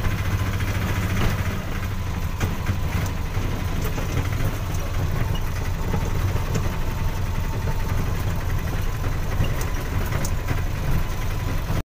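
Auto-rickshaw engine running steadily as the rickshaw drives along, heard from inside its open passenger cabin, with occasional short knocks.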